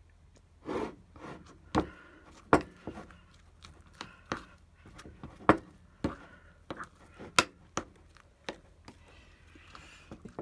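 A spoon scraping and knocking in a cup of soft homemade chocolate: a run of irregular sharp clicks and taps, a few of them louder knocks.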